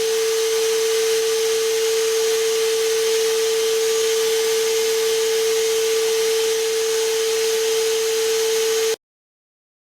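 Ridgid cordless NXT wet/dry vacuum running steadily: a constant motor whine with airflow hiss, cutting off suddenly near the end.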